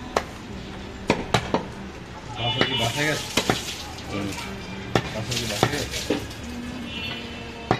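Butcher's knife cutting goat meat on a wooden log chopping block. Several sharp knocks of the blade striking the wood, with scraping and slicing noise between them.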